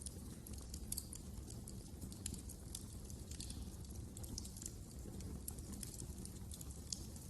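Wood fire crackling in a fireplace: irregular sharp snaps and pops, several a second, over a low steady rumble of the burning.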